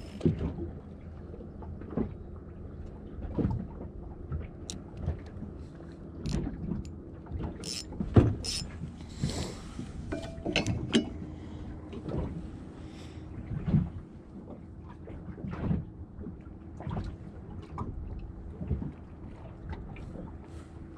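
Small aluminium-railed fishing boat on the water: irregular knocks, clicks and slaps, from the hull, the fittings and a spinning rod and reel being handled, over a faint steady hum.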